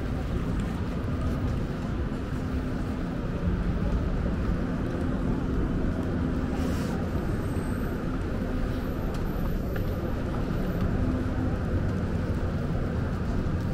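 Steady city traffic on wet streets: a low rumble with a droning engine hum, and a brief hiss about seven seconds in.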